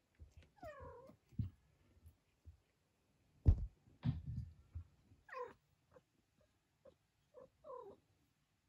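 Four-week-old kittens giving three short mews, about half a second in, around five and a half seconds and near the end, with a few faint squeaks between. Soft thumps and rustles of fur close to the microphone, the loudest about three and a half seconds in.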